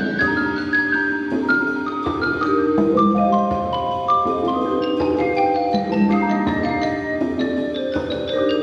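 High school percussion ensemble playing a passage of quick, overlapping pitched notes that ring on, with no pause.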